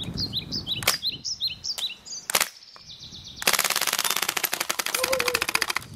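Full-auto Cybergun Uzi BB gun firing one rapid burst of sharp cracks lasting about two and a half seconds, starting about three and a half seconds in. A few single sharp clicks come before it.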